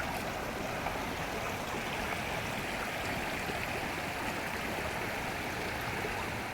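Steady rushing of flowing water, like a stream running over rocks.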